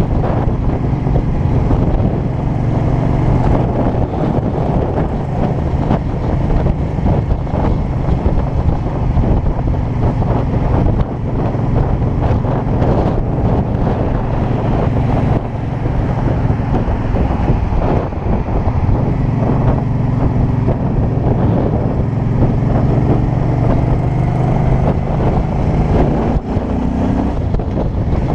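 Heavy wind noise buffeting a helmet-mounted GoPro in an open skeleton housing, over the steady low drone of a 2005 Suzuki Boulevard C50's 805 cc V-twin cruising at road speed.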